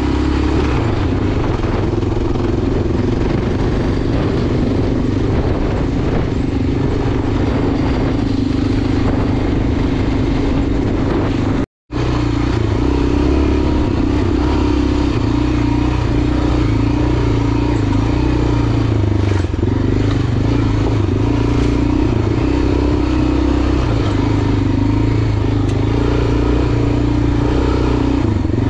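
Enduro motorcycle engine running steadily while riding, its note holding fairly even throughout. The sound cuts out completely for a split second about twelve seconds in.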